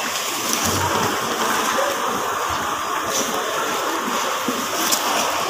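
Thin plastic produce bags crinkling and loose onions with dry, papery skins being rummaged through by hand: a steady rustling with small clicks.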